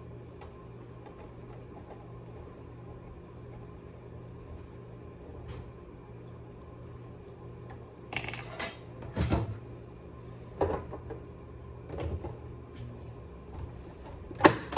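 Faint steady low hum, then from about halfway on a series of scattered plastic knocks and clicks: a PlayStation 5 console's casing and parts being handled during reassembly. The loudest knock comes near the end.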